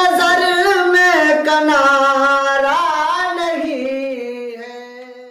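A man sings the final line of a devotional Urdu kalam solo, drawing it out in a long winding phrase. It settles on a held note that slowly fades away.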